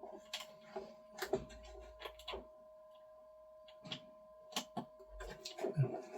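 Scattered light clicks and taps of plastic parts being handled as PTFE tubes are pushed back into the fittings of a Bambu AMS, about eight or nine knocks, the loudest near the end. A steady faint hum runs underneath.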